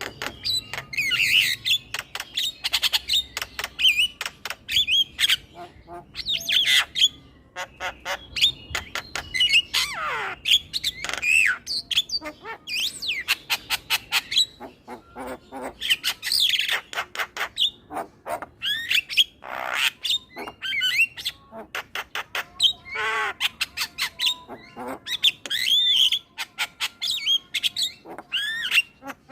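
Male Javan myna singing a long, varied song: harsh squawks, whistled notes that slide up and down, and quick runs of clicking notes, one after another without a break.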